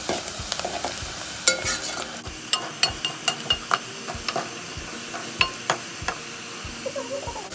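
Sliced onions sizzling in hot oil in an aluminium pot, almost browned, while a steel ladle stirs them, scraping and knocking against the pot in frequent sharp clicks, a few with a brief metallic ring.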